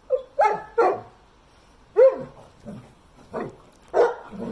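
A dog barking repeatedly: about eight short, sharp barks at an uneven pace, some in quick pairs.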